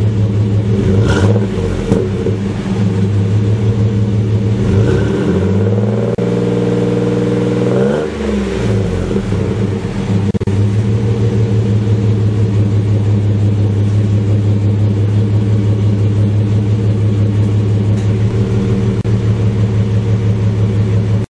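A 4.3L Vortec V6 heard at the tailpipe through a Gibson 3-inch cat-back exhaust with a packless muffler, warmed up and idling. There is a quick blip of the throttle about a second in. A longer rev follows that rises, holds for about two seconds and drops back to a steady idle about eight seconds in.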